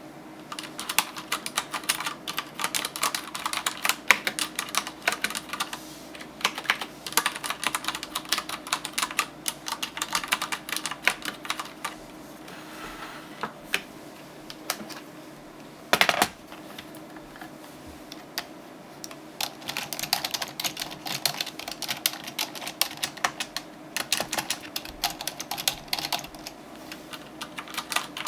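Typing on computer keyboards, a Xenics mechanical keyboard and an ordinary keyboard, in fast runs of keystroke clicks. The typing pauses about halfway through, with one loud knock in the pause, then resumes.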